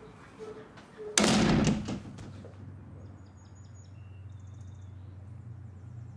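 A door slams shut about a second in. Then small birds chirp in short bursts over a steady low outdoor hum.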